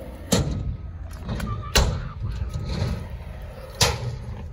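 Hard wheels rolling on skatepark concrete with a steady low rumble, broken by three sharp impacts of the ride and landings, about a second and a half to two seconds apart.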